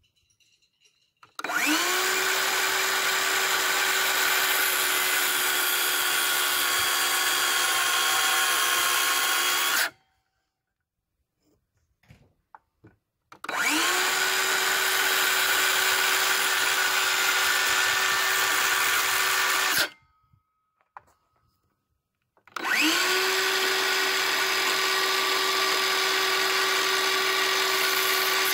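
DeWalt cordless circular saw cutting rough-sawn rafter stock, run three times. Each run spins up with a quick rising whine, then holds a steady high whine at full speed through the cut, with silent gaps between runs. These are the saw cuts for the rafters' bird's-mouth notches, to be finished with a handsaw.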